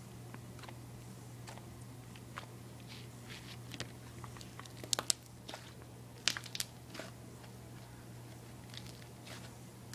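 Fluffy slime being squished and stretched by hand, making scattered small pops and crackles, the loudest few about five seconds in and again a little after six seconds, over a steady low hum.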